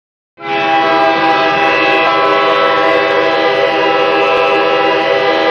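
Hockey arena goal horn sounding, a loud chord of several held tones that starts abruptly about half a second in and holds steady.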